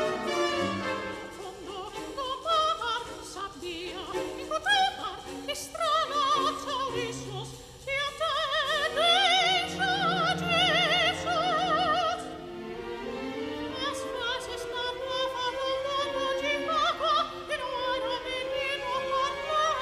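Operatic soprano singing with wide vibrato, accompanied by a symphony orchestra. She holds one long high note in the middle of the phrase.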